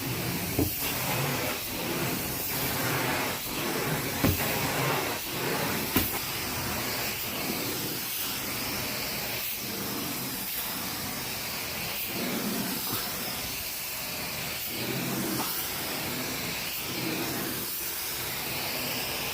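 Carpet extraction wand spraying and sucking up water, a steady loud hiss with a faint pulse about once a second as it is pushed and pulled across the carpet. Two sharper knocks come about four and six seconds in.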